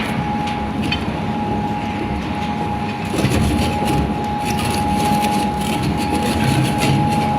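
Heavy machine running steadily, with a constant high whine, low rumble and scattered knocks and rattles.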